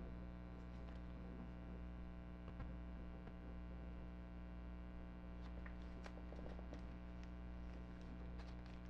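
Steady low electrical hum with faint ticks and plastic rustles as a trading card is handled and slid into a binder's plastic sleeve pocket; the ticks come mostly in the second half.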